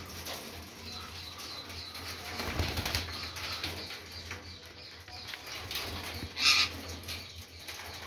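Indian ringneck parakeets in an aviary, rustling and fluttering their wings on the perches, with one short, loud squawk about six and a half seconds in.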